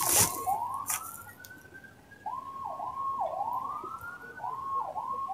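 A siren wailing in a repeating cycle: a held tone that dips and then glides slowly upward, about every two seconds. Two sharp cracks in the first second.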